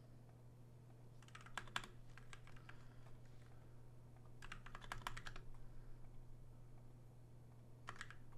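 Faint typing on a computer keyboard in four short runs of keystrokes, over a steady low hum.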